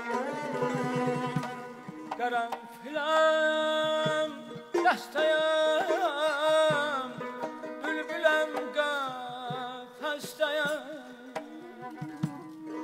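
Azerbaijani mugham singing: a high male voice sings long, gliding phrases broken by quick warbling trills, over string accompaniment holding steady low notes.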